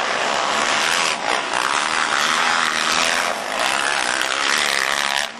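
Motocross bike engines racing on the track, a raspy buzz whose pitch rises and falls as the riders work the throttle. The sound drops away suddenly near the end.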